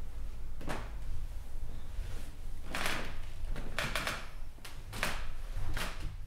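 A person shifting in bed: about five short rustles of bedding and clothing, over a low steady room hum.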